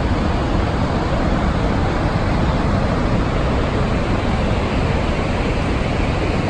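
Steady roar of water pouring over Niagara Falls.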